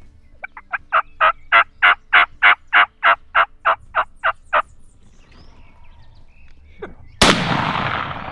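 A long, even series of about fourteen wild turkey yelps, about three a second, rising and then tapering off. About seven seconds in, a single loud shotgun blast rings out and fades: the shot that drops the strutting tom.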